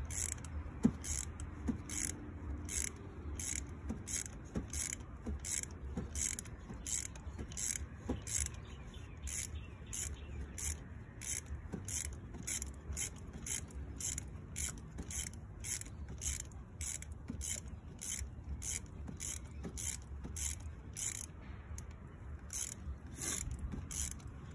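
A 3/8-inch ratchet on an extension and 5/8-inch spark plug socket clicking in a steady rhythm, about twice a second, as a spark plug is backed out of the cylinder head. A low rumble runs underneath.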